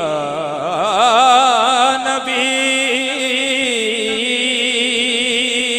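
A male naat singer holding a long, ornamented vowel with a strongly wavering pitch, over a steady drone.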